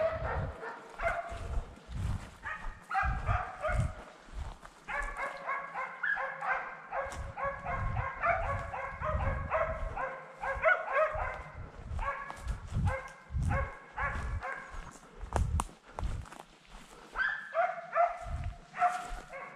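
Hunting dogs barking in long runs of rapid barks, about three a second, pausing briefly twice: hounds giving voice on a wild boar chase. Low thuds of footsteps on the forest trail run underneath.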